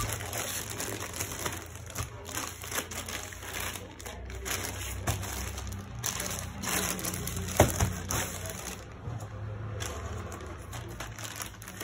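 Plastic polythene mailer bag crinkling and rustling as it is handled and turned over, with one sharp snap about two-thirds of the way through.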